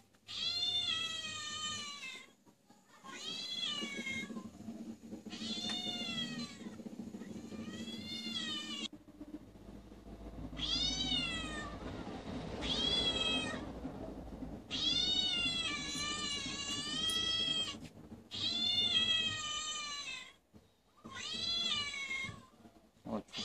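Recorded cat meows playing from a laptop's speakers: about ten drawn-out meows in a row, each a second or two long, with short pauses between them.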